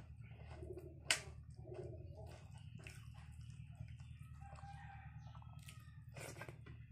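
A rooster crowing for about a second and a half in the middle, over small sounds of fingers mixing rice on a steel plate and chewing. A sharp click comes about a second in, and a steady low hum runs underneath.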